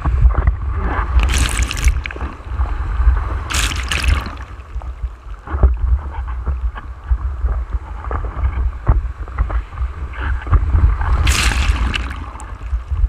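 Whitewater sloshing and splashing against a foam surfboard and the camera on its nose, over a constant low buffeting rumble. Three louder rushes of spray break over the board: about a second and a half in, around four seconds, and near the end.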